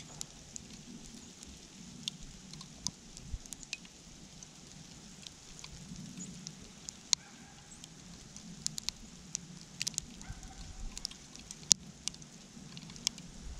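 Winter storm precipitation pattering: scattered sharp ticks, irregular and a few a second, over a steady outdoor hiss and low rumble.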